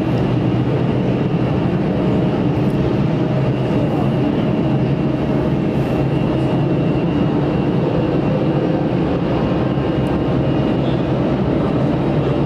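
Jet airliner engines running, a steady rumble with a faint whine held through.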